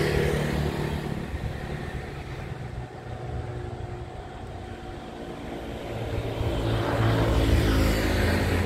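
Road traffic passing close by on the street: one vehicle's engine noise fades away in the first few seconds, then another approaches and grows louder from about six seconds in.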